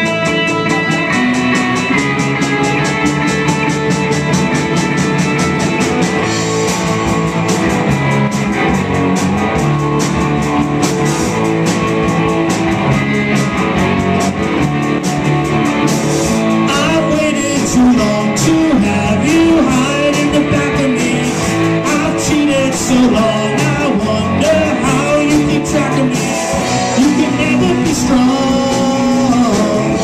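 A live rock band playing: electric guitars and a drum kit, with the cymbals coming in more strongly about six seconds in. A man starts singing about half-way through.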